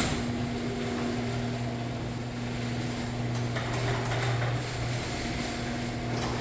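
Genie garage door opener running, its motor giving a steady hum over the noise of the drive moving the door.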